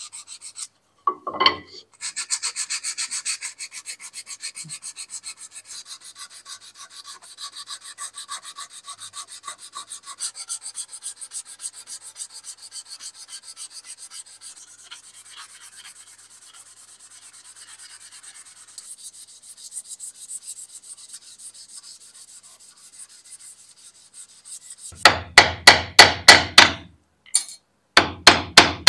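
Sandpaper rubbed by hand in fast, short strokes over a turned wooden axe handle, with a short knock about a second in. Near the end, a hammer taps quickly and much more loudly on a small round-headed pin being driven into the wooden handle.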